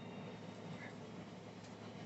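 Quiet room tone: a steady low hum under faint hiss, with one tiny faint chirp a little before the middle.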